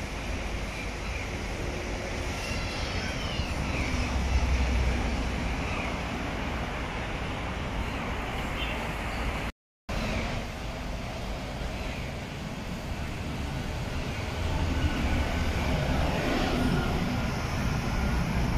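Steady outdoor background noise with a low rumble that swells twice, the kind of wash that distant traffic or wind makes, with no clear sound from the cat. The audio cuts out for a split second about halfway through.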